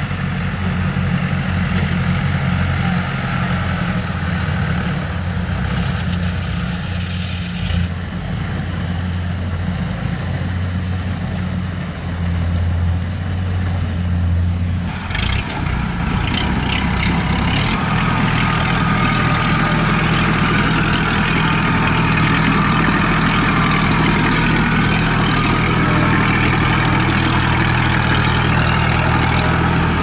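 Kubota RT120 diesel engine of a tracked rice-sack carrier converted from a harvester, running steadily as the machine crawls along under load. The sound's tone changes about halfway through.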